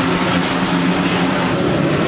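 Slovenian Railways 25-026 steam locomotive working, heard inside its cab: a loud, steady noise with a low, even hum beneath it.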